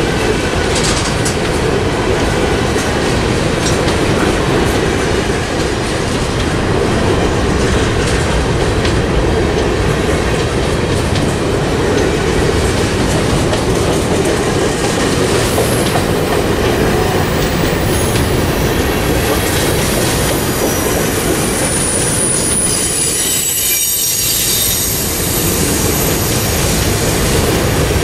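Freight train of covered hopper cars rolling past close by: a steady loud rumble and rattle of steel wheels on the rails. A thin high wheel squeal comes in during the second half.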